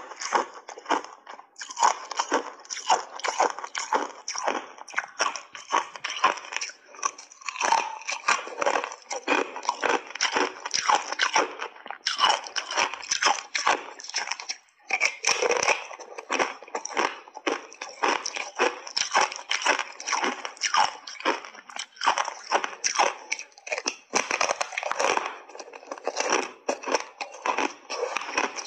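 Thin block ice heavily coated in matcha powder being bitten and chewed in big bites: a dense, continuous run of sharp crunches and cracks.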